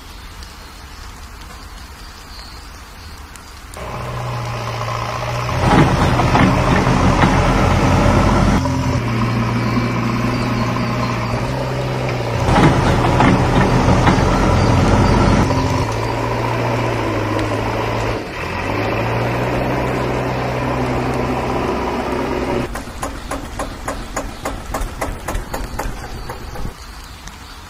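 Falling water hisses steadily, then about four seconds in a tractor engine starts running with a steady hum, rising louder a couple of times as if revved, and settles into a fast rhythmic chugging near the end.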